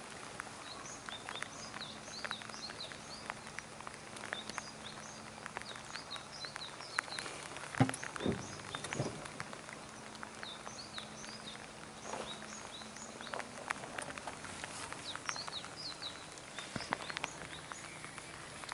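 Rain pattering on the water and the boat, with small birds chirping in quick clusters of short high notes. A louder knock sounds about eight seconds in, with a second one a second later.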